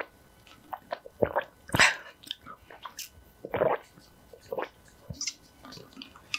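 A person drinking from a can close to the microphone: a run of gulps and swallows, irregularly spaced, some louder than others.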